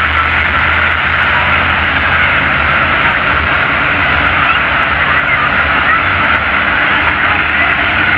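Supercharged, methanol-fuelled monster truck engines running together, a loud steady rumble with no revving or sudden bursts.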